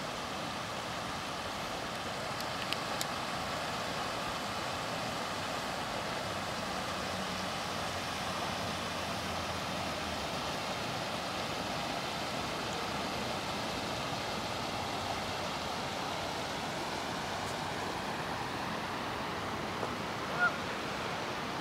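Steady, even outdoor rushing noise with no rhythm or pitch, and one short bird call near the end.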